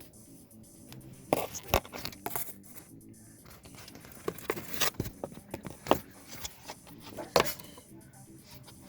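Irregular clicks, taps and light scrapes of hands handling small plastic and metal parts and tools during work on a car's intake, about half a dozen sharper knocks spread through.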